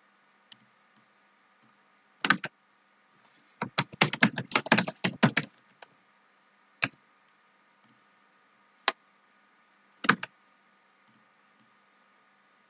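Computer keyboard typing: a quick run of keystrokes lasting about two seconds, with a double click before it and three single clicks spaced out after it.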